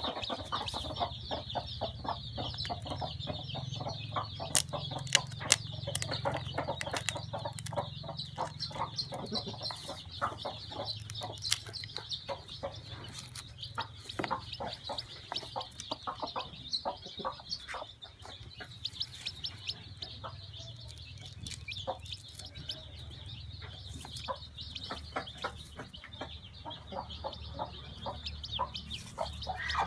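Young chicks peeping continuously in a high pitch, with many short clicks scattered through it and a low steady hum underneath.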